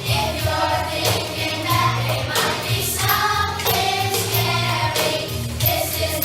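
A choir singing a song over instrumental accompaniment, with a steady percussive beat and a bass line.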